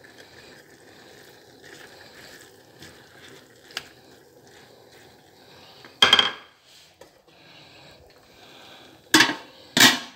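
Metal cookware clatter: a loud clang about halfway through, then an aluminium pot lid clanks twice against the rim of a large cooking pot near the end as it is put on.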